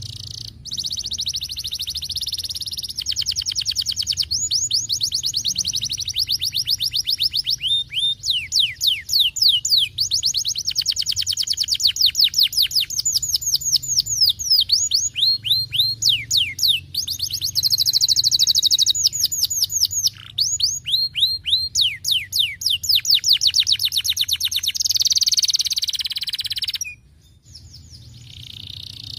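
Domestic canary singing a long, continuous song of rapid trills and long runs of fast repeated down-slurred notes. It stops briefly near the end, then starts again.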